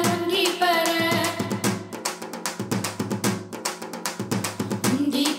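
Instrumental interlude in a Tamil devotional song: a held melodic line, then about a second and a half in a fast run of drum strokes takes over, with the melody coming back near the end.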